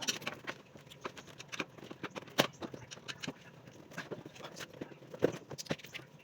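Irregular clicks and knocks of hand tools and parts being handled, with two sharper knocks about two and a half and five seconds in.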